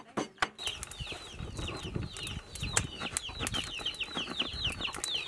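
Chicks peeping busily: a quick, overlapping string of short, high, falling chirps over a low noise. A couple of sharp clicks come right at the start.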